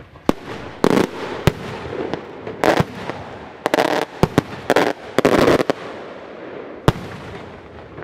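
Maltese cylindrical aerial firework shell (beraq) bursting overhead: a string of sharp cracks and short bangs as its many small charges go off, densest over the first six seconds, with a last sharp crack near seven seconds.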